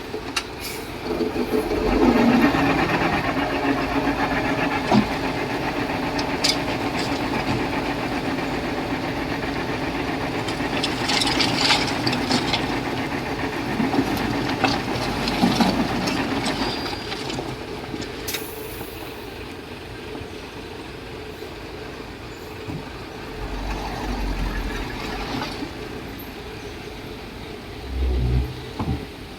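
Komatsu D31P bulldozer's diesel engine running under work, with scattered metallic clanks; it quietens after about eighteen seconds.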